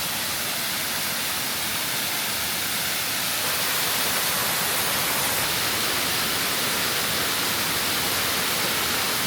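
Waterfall: the steady rush of falling water, an even hiss without breaks.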